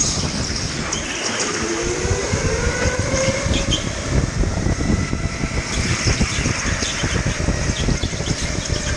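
Electric rental go-kart at speed, heard from on board: a steady rumble of the kart over the track with the electric motor's whine rising in pitch about two seconds in as it accelerates.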